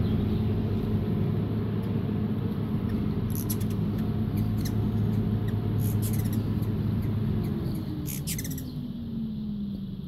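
Hummingbird wings humming as the bird hovers right at the hand while feeding, with high, thin chip notes from the hummingbirds several times. The hum fades and drops in pitch near the end as the bird settles onto the fingers.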